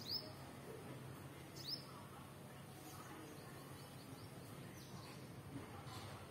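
A small bird chirping: two sharp, quick falling whistles, one at the start and another about a second and a half later, with a few fainter chirps after, over a faint steady outdoor background.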